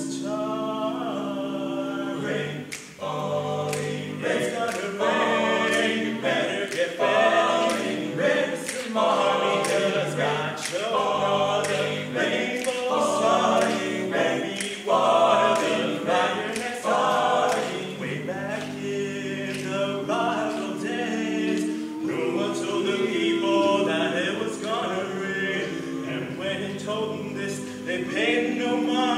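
Five-voice a cappella group singing a gospel arrangement in close harmony, over a steady beat of sharp clicks about twice a second.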